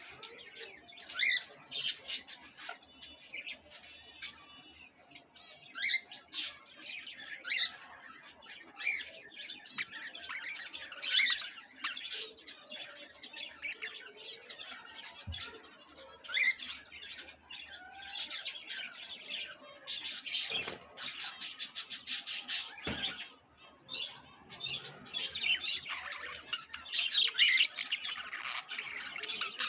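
A crowd of caged budgerigars chirping and squawking in many short, overlapping calls, with a burst of fast rattling about two-thirds of the way in.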